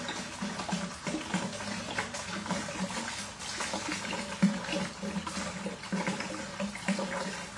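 Tequila glugging out of a large 1.75-litre bottle as it is poured into a margarita machine's container, in uneven pulses.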